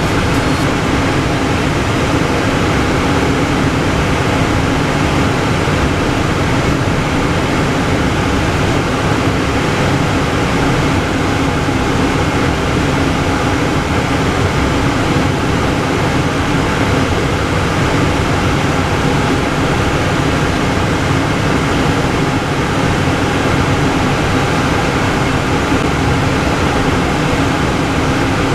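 Steady cockpit noise of a Cessna Citation M2 business jet: its twin turbofan engines and the rush of air, an even hiss with a low hum that does not change.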